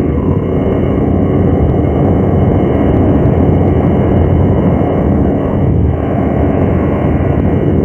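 Monster roar sound effect: a long, loud, rough low roar that starts abruptly and goes on for about eight seconds.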